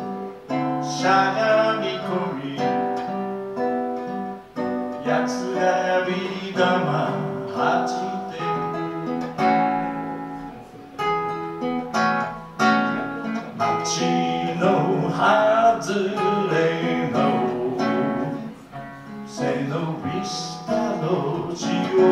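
A man singing a song while accompanying himself on an acoustic guitar.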